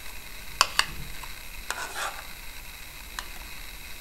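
A spoon tapping and scraping a small plastic bowl as sour yogurt is spooned out into flour. There are two sharp taps just over half a second in, a short scrape a little later, and a faint tap near the end.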